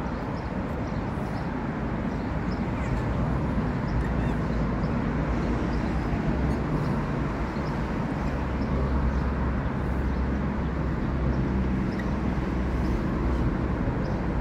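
Steady outdoor background noise with a low rumble that comes and goes, and a few faint high ticks over it.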